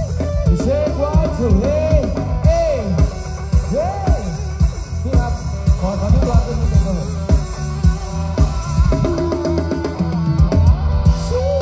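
A live band playing through PA speaker cabinets during a sound check: a drum kit keeps a steady beat under a lead melody that slides and bends in pitch.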